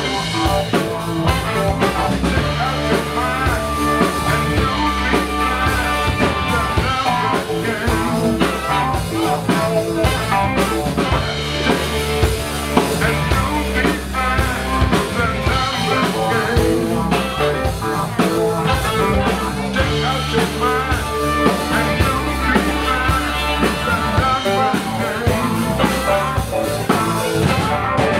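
Live instrumental rock band playing: electric guitar and electric bass over a drum kit keeping a steady beat.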